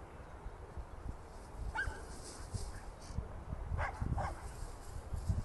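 A dog barking three short times: once about two seconds in, then twice in quick succession near four seconds, over a low steady rumble.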